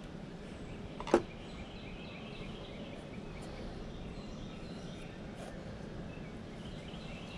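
Steady outdoor background with faint bird calls and a single sharp click about a second in.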